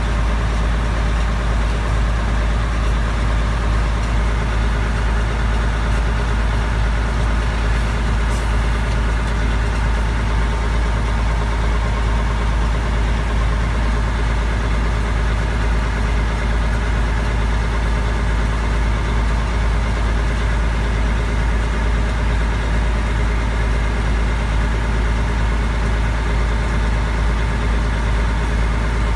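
Mack R600 truck's diesel engine idling steadily, heard from inside the cab.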